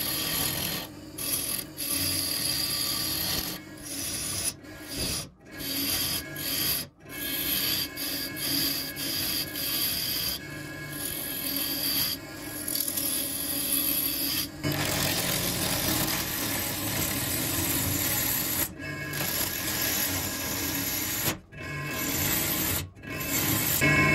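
A gouge cutting into a spinning apple-wood blank on a wood lathe: a rough, continuous shearing as shavings peel off, broken by brief gaps each time the tool lifts from the wood.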